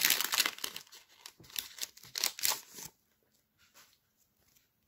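Foil booster pack wrapper crinkling and tearing as it is opened, a dense crackle that stops about three seconds in. After that only a few faint ticks of cards being handled.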